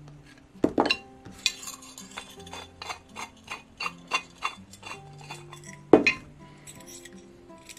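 Light metal clicks and clinks as the detachable metal handle rods of a Montagna storage hot sandwich pan are worked loose and pulled from the pan halves, with two louder knocks, about a second in and about six seconds in.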